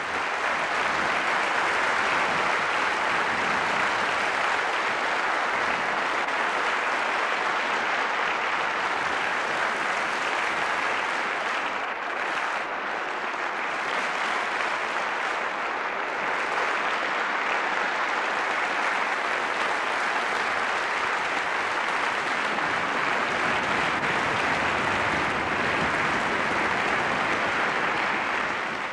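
Large audience in a concert hall applauding steadily.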